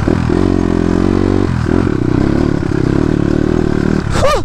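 Dirt bike engine running under way, its revs rising and easing as it is ridden.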